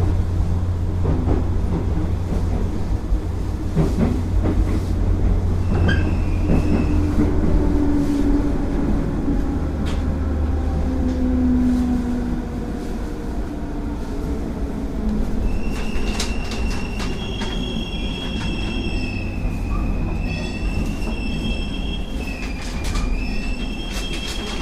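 JR 205 series electric train running, with a steady low rumble and occasional rail-joint clicks. From about two-thirds of the way in, the wheels squeal with high, wavering tones.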